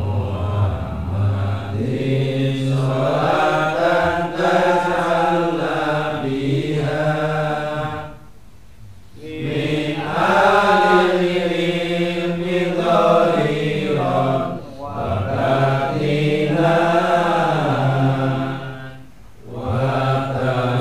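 Men chanting a slow, melodic devotional recitation: long held, gliding notes in phrases, with a breath-break about eight seconds in and another near the end.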